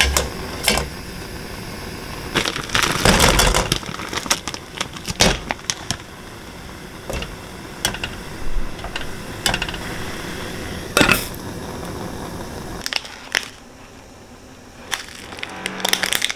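A perforated metal steamer basket clinking and knocking against the rim of a metal pot, then soft taps as dumplings are set into it, over a steady hiss. Near the end the hiss stops and a plastic noodle packet crinkles.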